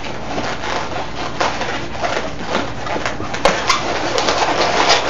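Inflated latex 260 twisting balloons rubbing against each other and against the hands as they are twisted and wrapped together, a steady rubbing with a couple of sharp ticks about three and a half seconds in.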